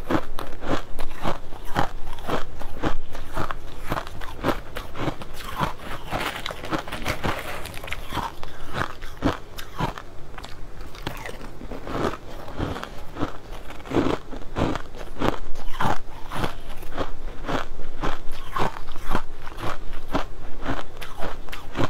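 Mouth-close crunching and chewing of crushed ice, a rapid, irregular run of sharp crunches as it is bitten and chewed.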